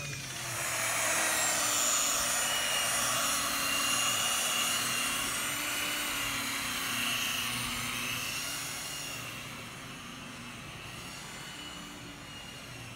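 Corded electric car polisher running steadily, a whirring hum with a faint whine that drifts slightly in pitch. It grows quieter about ten seconds in.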